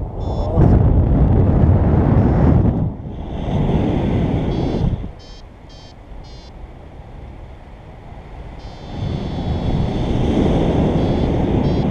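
Wind buffeting the microphone of a paraglider in flight, easing about five seconds in and picking up again near nine seconds. Over it a variometer gives runs of short, high, rapid beeps: its climb tone, the sign the glider is rising in lift.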